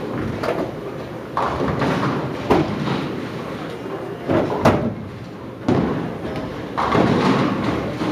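Bowling alley ambience: indistinct talk and murmur with several sharp thuds and knocks, the loudest a bit under halfway through.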